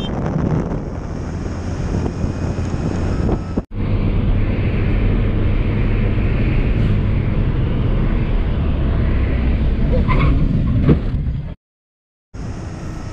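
Motorcycle riding at speed: engine and road noise under wind rushing over the camera microphone. The sound breaks off briefly about four seconds in and drops out for about a second near the end, with a few short knocks just before that.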